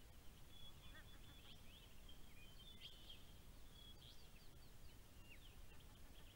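Faint high chirps and short falling peeps of birds, with a quick run of them about four seconds in, over a steady low background hiss.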